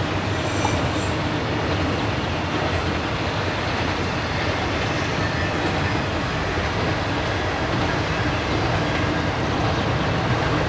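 Potato harvesting machinery running steadily: a heavy engine drone under a continuous mechanical rattle and clatter.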